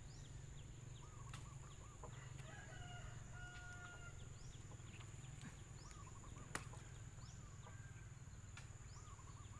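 Faint riverside ambience of birds calling, in short rapid runs of looping notes, with one held whistled call about three seconds in. A single sharp tick about six and a half seconds in.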